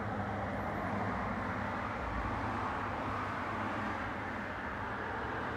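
Steady low background hum under an even wash of noise, with no sudden sounds.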